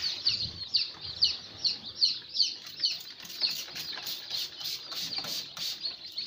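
Newly hatched chicken chicks peeping: a fast, overlapping run of high, falling cheeps, several a second.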